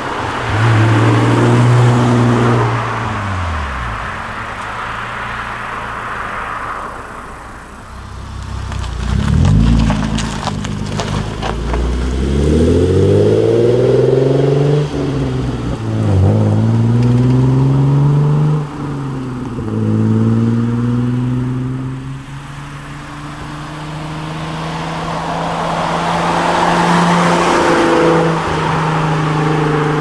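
Hyundai Genesis Coupe 3.8's V6 through an aftermarket cat-back exhaust, accelerating and revving in several pulls past the listener. The pitch climbs and falls back with each gear change, then holds a steadier tone near the end.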